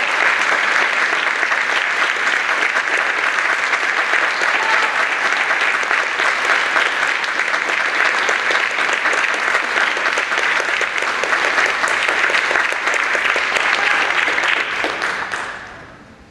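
Theatre audience applauding steadily, the clapping dying away over the last second or so.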